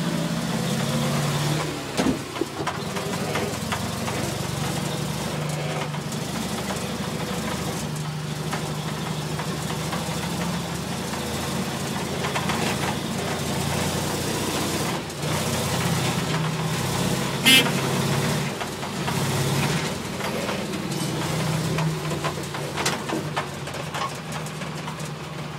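The 18 hp engine of a small custom-built mini fire truck running while driving, its note rising and falling with the throttle. A short, sharp sound cuts in once about two-thirds of the way through.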